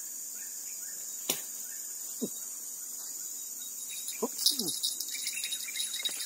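Steady high-pitched chorus of crickets, with a sharp click about a second in and a few short falling low sounds. From about four and a half seconds in come a cluster of clicks and rustling as a fishing rod and reel are handled.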